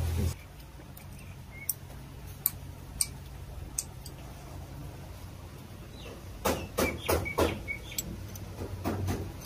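Light metallic clicks and taps of an Allen key, screwdriver and small metal parts against a VE-type diesel injection pump: a few single clicks, then a quick run of clicks about six and a half seconds in and a couple more near the end.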